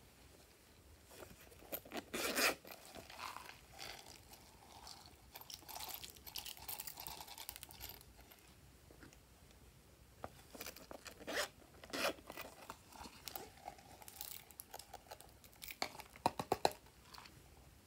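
Plastic toys and containers being handled and opened over trays of slime: scattered crinkling, crackling and sharp plastic clicks, with a few louder clicks at irregular moments.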